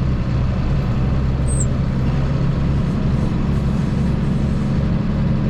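Tractor engine running steadily under load with the PTO driving a bush hog, heard from inside the cab; its low note shifts higher about halfway through.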